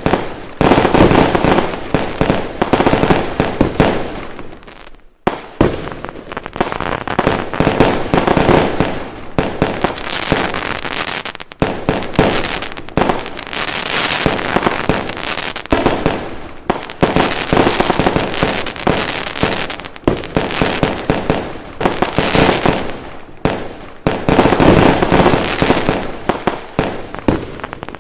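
Fireworks going off in rapid, overlapping volleys of bangs and crackling, with a brief lull about five seconds in.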